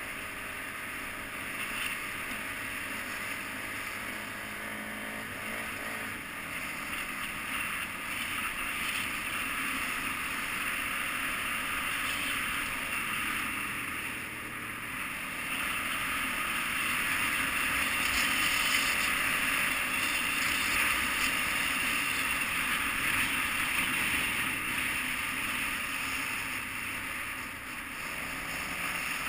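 KTM 990 Adventure's V-twin engine running as the bike rides along a dirt track, muffled under a steady rush of wind. The engine pitch climbs over the first few seconds, and the whole sound grows louder for a stretch past the middle.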